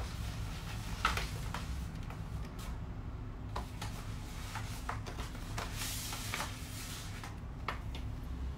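Steady low room hum with a scattered handful of faint clicks and taps.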